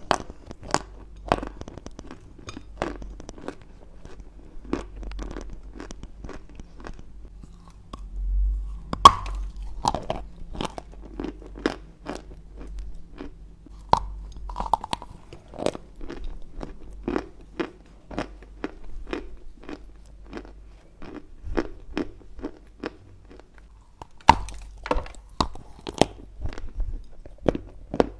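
Close-miked crunching and chewing of a hard, dry chunk of clay: bites snap into it and the grit crunches between the teeth in many irregular crisp crackles, right at the microphone.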